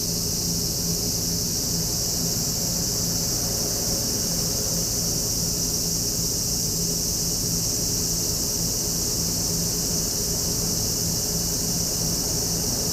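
Steady high-pitched chorus of insects that runs without a break, over a steady low hum.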